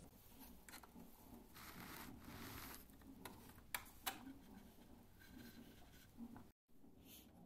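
Faint handling noise of fingers rubbing and fitting a small fabric door panel onto a wooden model Jeep, with two light clicks about half a second apart around the middle. The sound cuts out for a moment near the end.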